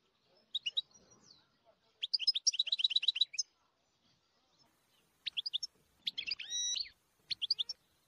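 A small caged songbird singing: scattered high chirps, then about two seconds in a fast trill of evenly repeated notes lasting about a second and a half. A few more chirps and a held whistled note follow around six to seven seconds in.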